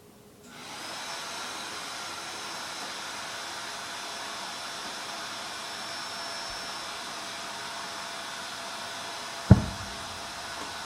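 A steady whirring hiss, like a small motor-driven appliance, comes on about half a second in and runs evenly, with one sharp knock near the end.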